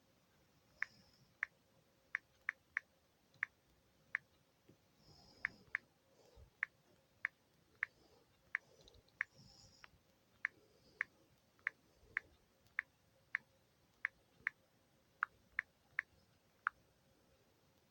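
Short, sharp clicks repeating about every half second at a slightly uneven pace, with a few faint soft hissy sounds between them.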